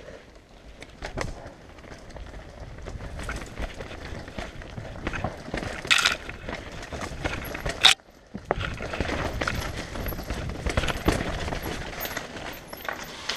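Mountain bike riding fast down a rocky, rooty dirt trail: tyres rolling over dirt and rock while the bike rattles and clatters, with sharp knocks from hits, the loudest around six and eight seconds in. The sound drops out almost completely for a moment just after eight seconds.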